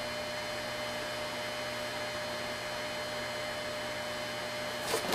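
Steady electrical mains hum with a faint hiss under it, and a brief soft noise just before the end.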